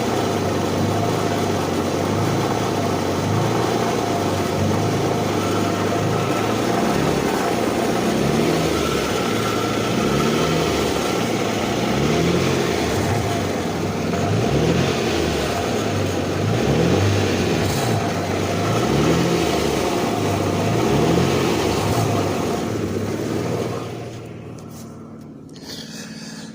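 High-mileage 2008 Infiniti M35x's 3.5-litre V6 running with the rattling noise that the owner is asking for help with. Near the end the engine sound drops away sharply.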